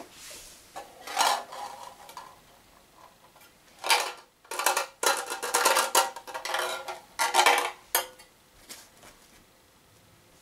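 A shot-up tin can being handled and shaken, rattling and clattering in several irregular bursts of tinny metal noise.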